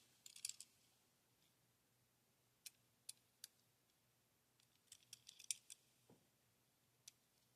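Faint, scattered clicks and light crackles of die-cast toy car packaging being handled and opened, in small clusters with pauses between.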